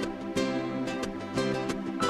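Background music: a strummed plucked-string instrument such as a ukulele or guitar, with a steady beat of strums.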